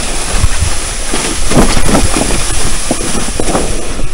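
Red plastic sled loaded with firewood sticks dragged over snow: a steady scraping hiss with irregular crunches as the load and the walker's feet press into the snow.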